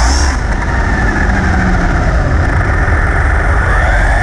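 RC car driving fast on asphalt, heard from its onboard camera: a motor whine that rises and falls in pitch over a heavy rumble of wheels and wind on the microphone.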